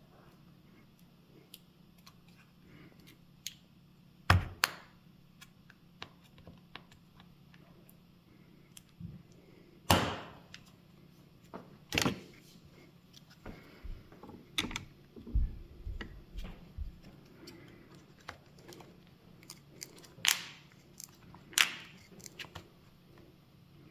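Plastic pry tool clicking, scraping and tapping against the old battery and frame of an original Nintendo Switch, in irregular sharp clicks with a few louder knocks, as the strongly glued-down battery is pried at.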